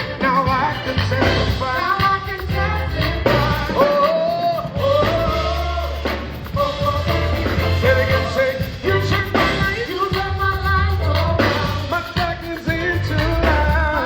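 A band playing a song with a lead singer: a sung melody over a stepping bass line and drums.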